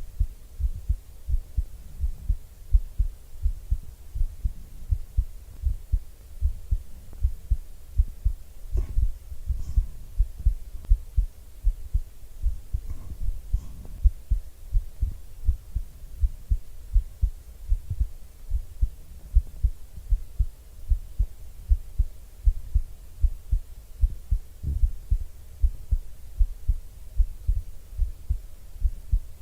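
A person's heartbeat heard up close: a steady, even rhythm of low, muffled thumps, with a few faint rustles about a third of the way in.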